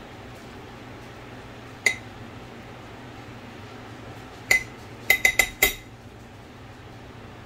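Metal spoon clinking against the side of a ceramic mixing bowl while stirring potato salad: one clink about two seconds in, another halfway through, then a quick run of four.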